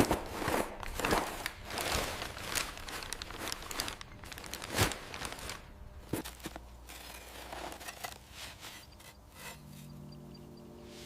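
Rustling and handling noises with scattered sharp clicks, one louder click about five seconds in; it turns quieter after about seven seconds, and a low steady hum comes in near the end.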